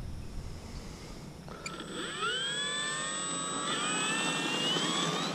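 Electric motor of a FliteLine F8F Bearcat RC model throttling up. After about a second and a half a whine rises in pitch and then holds steady, and it climbs again near the end.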